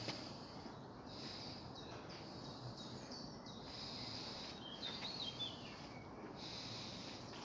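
Quiet ambience in a large old timber barn: faint steady hiss, with a bird chirping briefly about five seconds in.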